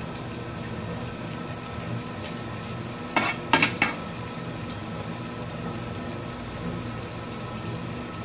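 Amaranth greens (mulai keerai) frying in an aluminium kadai with a steady sizzle, and three quick clinks of a steel ladle against the pan a little after three seconds in.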